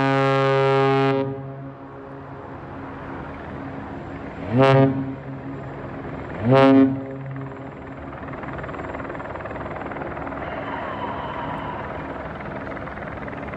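The CMA CGM Marco Polo's ship horn: a long deep blast that ends about a second in, then two short blasts about two seconds apart, each sliding up in pitch as it starts.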